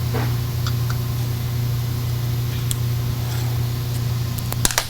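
A steady low hum throughout, with a few faint clicks and then a quick cluster of sharp metallic clicks near the end, from the Allen wrench and bolt as a shot blaster's back brush is unbolted.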